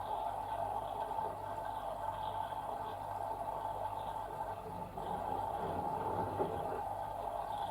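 LG washing machine running its wash cycle, water sloshing steadily in the drum, with a brief dip about five seconds in.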